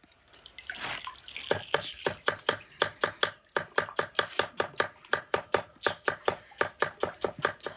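Knife chopping on a cutting board in a steady, rapid rhythm of about four strokes a second, starting about a second in.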